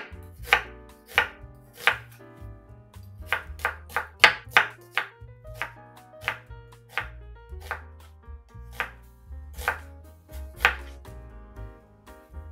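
Kitchen knife slicing an onion on a wooden cutting board: a series of sharp, irregular knocks of the blade meeting the board, with a quicker run of cuts a few seconds in.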